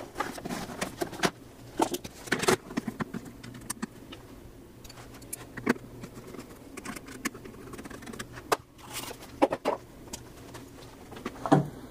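Irregular clicks and knocks of hard plastic parts being handled and seated as a filter basket is fitted into a Rug Doctor carpet cleaner's plastic tank, with a few sharper knocks among them.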